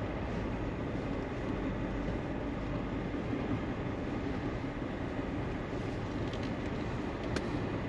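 Vehicle driving along a rough farm lane, a steady low rumble of engine and road noise heard from inside the cab, with a couple of light ticks near the end.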